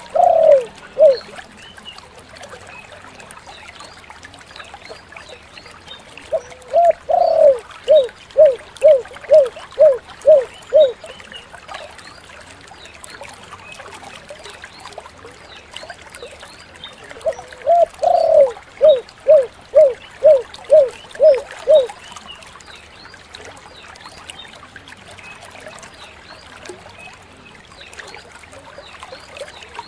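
Spotted dove (tekukur) cooing in the 'kuk 7' style: twice, a drawn-out opening coo followed by an even string of short clear coos, with the end of a previous phrase right at the start. A faint steady hiss fills the gaps between phrases.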